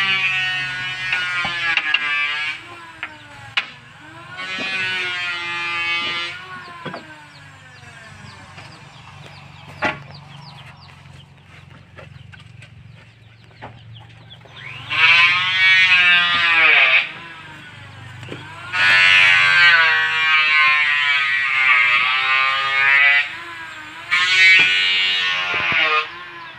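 Circular sawmill blade whining in five cutting passes of about two to four seconds each, its pitch bending as the blade takes load. A steady low drone from the machine's engine runs underneath.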